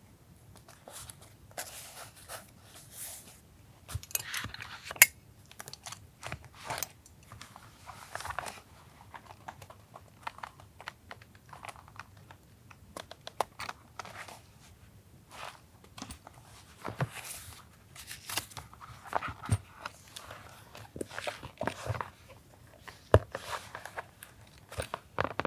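Paper being handled for a journal collage: irregular rustling and crinkling of sheets, with short tearing sounds and small sharp taps and clicks scattered throughout.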